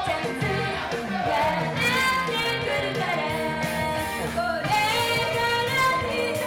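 Two female idol singers singing live into microphones over an upbeat J-pop backing track, their melody sliding up and down continuously.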